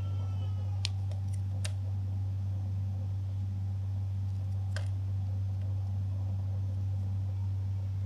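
A small pointed knife cutting into a bar of soap, giving a few short sharp clicks: two about a second in and one near the middle. A steady low hum runs underneath.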